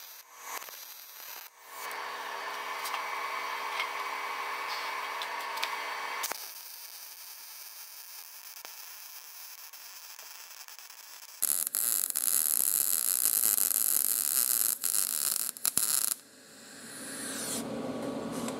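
Wire-feed (MIG) welder arcing on a steel mower deck: a crackling, hissing arc over a faint steady hum, laid down in separate runs that start and stop. A few short tacks come first, and the loudest, hissiest run is about two-thirds through and cuts off suddenly.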